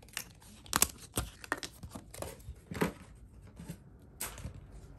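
Stiff cardboard terrain tiles being handled: several sharp clacks with some scraping and rustling between them as tiles are lifted off a stack, slid against each other and set down.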